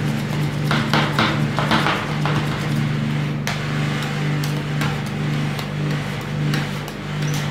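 Metal spatulas chopping and scraping ice cream on a steel cold plate, a quick run of tapping strikes in the first two seconds, then occasional taps and scrapes. A steady low hum runs underneath throughout.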